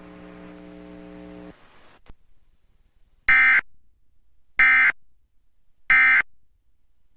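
Emergency Alert System End of Message signal: three short, identical bursts of screechy digital data tones about a second and a quarter apart, marking the end of the broadcast alert. Before them, a low steady hum stops about a second and a half in.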